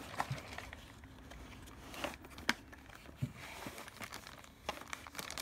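Clear plastic packaging tray sliding out of a cardboard box, with soft crinkling and rustling and a few sharp plastic clicks.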